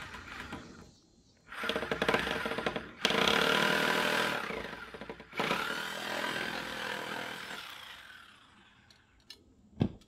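Power saw cutting through the top of a wooden post in three stretches of a few seconds each, the blade winding down with a falling whine after the last. A single sharp knock comes just before the end.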